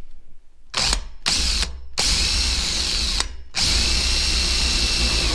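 Electric drill spinning a Diablo hole saw against the top of a new metal gas tank in five starts and stops, the last two runs over a second each. The saw walks across the metal instead of biting in.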